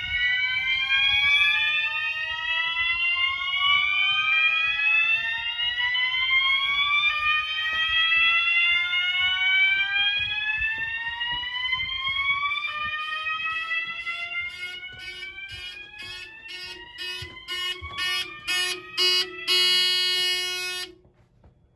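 Several non-ADA System Sensor mass horn strobes sounding slow whoop, each a long rising sweep repeated over and over, the horns overlapping out of step. Near the end the sweeps break into rapid stuttering pulses over a steady low tone, then cut off suddenly.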